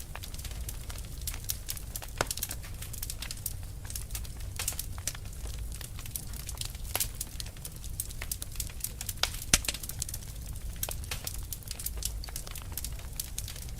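Fire crackling: dense, irregular snaps and pops over a low steady rumble, with one sharper, louder pop about nine and a half seconds in.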